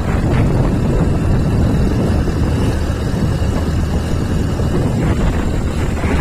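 Steady rumble of wind buffeting the microphone on a moving motorbike, with the bike's running and road noise underneath.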